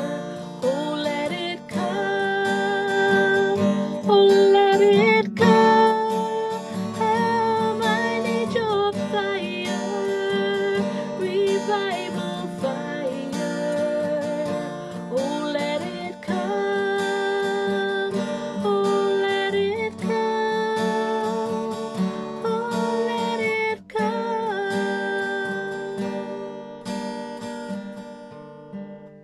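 A woman singing a worship song while strumming her steel-string acoustic guitar. Near the end her voice stops and the guitar chords die away.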